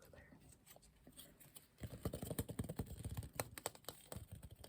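Quick, close-up taps and clicks of hands handling small objects right at the microphone. They start faint and sparse, then come fast and dense from about two seconds in.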